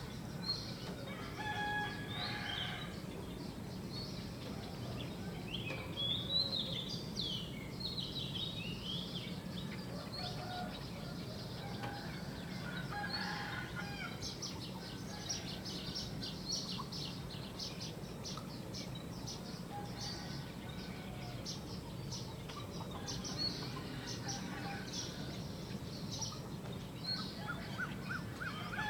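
Small birds chirping and trilling continuously, with a rooster crowing now and then, over a steady low hum.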